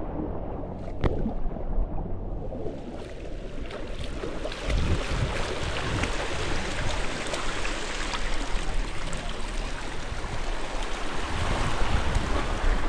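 Small waves washing and swirling over a rocky shore and shallows, a steady rush that grows a little louder about four seconds in, with wind rumbling on the microphone.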